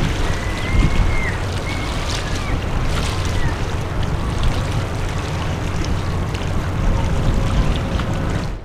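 Wind rumbling on the microphone over a steady low harbour rumble, with a few faint, thin, high whistling glides in the first few seconds. The sound drops suddenly just before the end.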